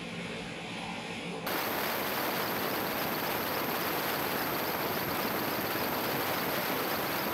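Quiet outdoor ambience with a faint low hum, then about a second and a half in an abrupt switch to a louder, steady, even rushing noise with no distinct events.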